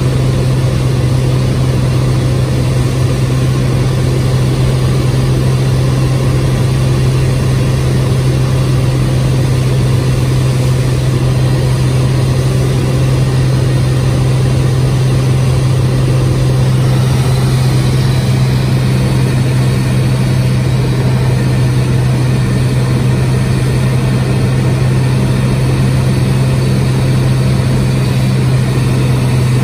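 Cessna 206H Stationair's six-cylinder Lycoming IO-540 engine and propeller, a loud steady drone heard inside the cockpit, holding one even tone through an ILS approach.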